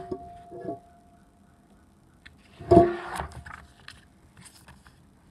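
Paper picture-book pages being handled and turned: a sharp knock at the start, then a louder rustle with a short ring about three seconds in, and a few light ticks.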